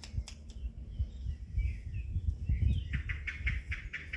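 Puppies scuffling and bumping on a fleece blanket, with irregular low thumps, and high chirping calls that turn into a quick run of chirps in the last second or so.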